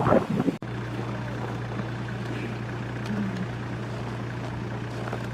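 Wind buffeting the microphone, cut off by an edit under a second in; then a steady, low vehicle engine drone.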